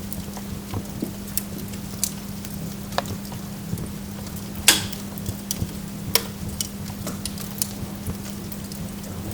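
Burning wood logs crackling in a fire, with irregular sharp pops and snaps; the loudest snap comes about halfway through. Underneath runs a steady low hum.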